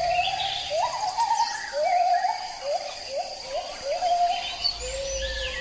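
Birds calling: a repeated string of short whistled notes, about two a second, each sliding up and then holding, with scattered higher chirps and a faint steady high insect hum behind them.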